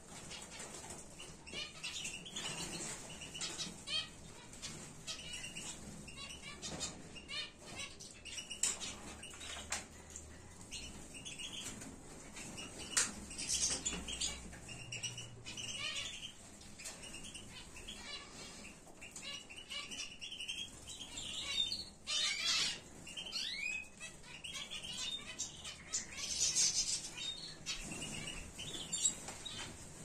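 Small cage birds, canaries and goldfinches, flying about a flight room: wings fluttering between perches, with many short chirps and calls throughout.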